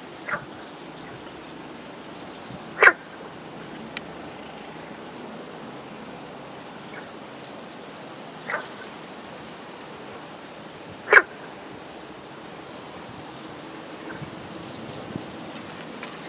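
A dog barks in the distance: four single barks, several seconds apart, the third one the loudest, over a steady outdoor hiss.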